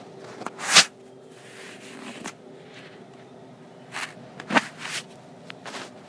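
A few short knocks and rustles, the loudest just under a second in and a cluster of them around four to five seconds in, over a faint steady hum.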